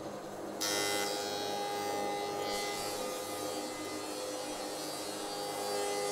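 Rikon 25-010H planer-thicknesser running. About half a second in, the cutterhead bites into a board fed through the thicknesser, and the motor hum turns into a steady, louder cutting noise as it takes a light skim pass.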